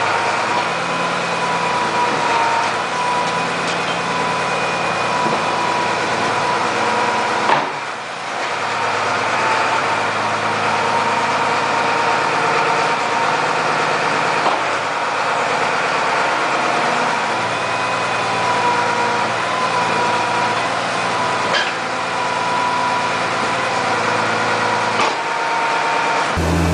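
Tractor engine running steadily while it pushes a rear-mounted scraper blade through manure, with a steady whine and a few sharp knocks.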